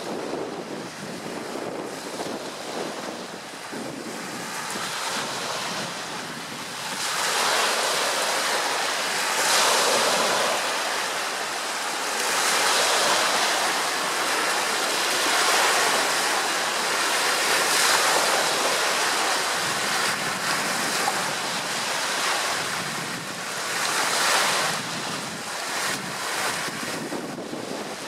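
Wind-driven waves washing onto the shore, surging louder every few seconds from about seven seconds in, with wind buffeting the microphone.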